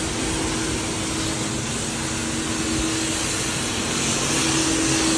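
Steady mechanical hum with a constant rushing noise over it, as from running machinery.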